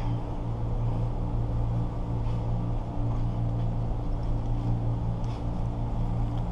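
Steady low mechanical hum with several fixed tones, unchanging throughout, with a couple of faint clicks.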